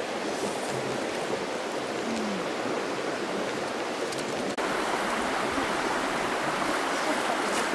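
Shallow stream running over a stony bed: a steady rush of flowing water. About halfway through the sound cuts out for an instant and resumes a little louder.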